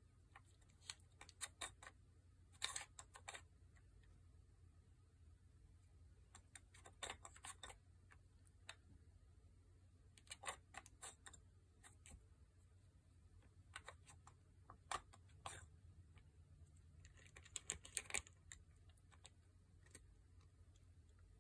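Faint clicks and clatters of a plastic treat puzzle board's pieces as a cat paws and noses at its discs and flaps, coming in short scattered bursts.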